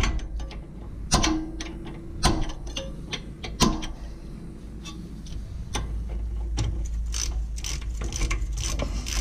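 Hand ratchet wrench clicking as it works the bolts of a rear brake caliper, with three sharp metal knocks in the first few seconds. The clicking becomes a quick, steady run of ratchet strokes in the second half.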